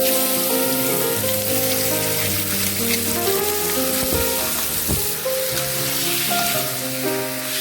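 Food sizzling steadily in a hot pan, starting suddenly, with background music playing over it.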